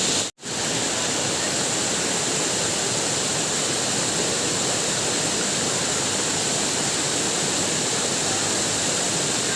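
Waterfall: a steady, even rush of falling water that cuts out for a split second near the start.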